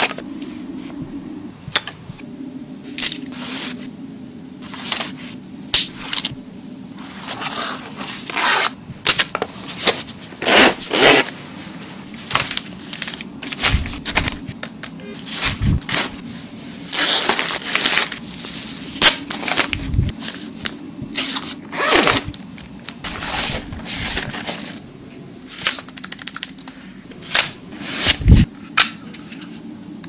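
Hands packing cosmetics into zippered pouches: plastic lipstick tubes and compact cases clicking and tapping against each other, with rustling of packaging and fabric and a few duller knocks as items are set down.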